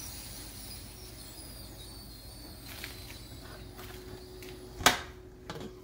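Last of the steam hissing faintly out of an aluminium pressure cooker and dying away, with a few small clicks of the lid being worked. About five seconds in, one sharp metallic clank as the lid is turned open.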